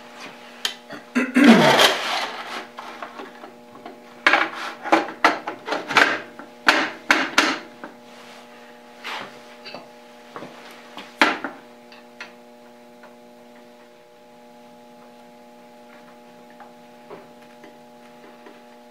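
A metal dust cover bracket being fitted onto a surface grinder and its screws tightened: scraping and clicking of metal parts, loudest in the first couple of seconds and dying away after about twelve seconds. A faint steady hum runs underneath.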